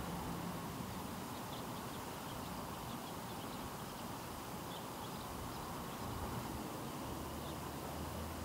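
Steady outdoor background noise with a faint low hum and a few faint, short high chirps scattered through it.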